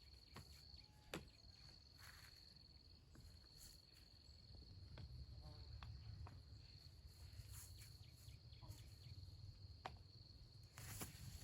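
Insects droning faintly with one high, steady, even tone, over a low rumble, with a few sharp clicks and a brief rustle near the end.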